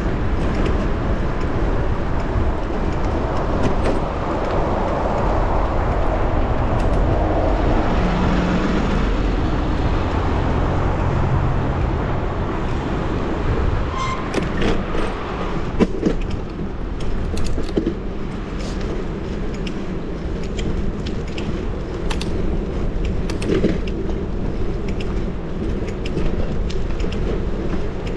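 City street noise heard from a moving bicycle: motor traffic and a steady low rumble of road and air noise, with scattered sharp clicks and rattles from about halfway through.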